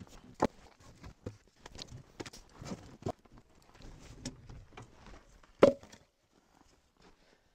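Split maple firewood knocking and thudding as pieces are handled off a trailer and dropped onto a woodpile, with footsteps in snow; one loud wooden thud about five and a half seconds in.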